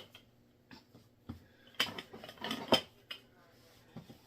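A few scattered knocks and clatters of kitchen utensils and containers being handled on a counter, the loudest about two and a half seconds in.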